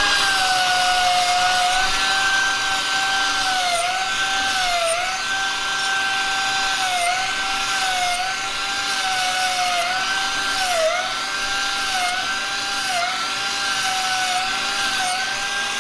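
Air-driven Dynafile belt file running as it dresses the edges of a cast bicycle frame lug, squaring them up before brazing. A steady, high whine with a hiss of abrasive on metal, the pitch dipping briefly about once a second.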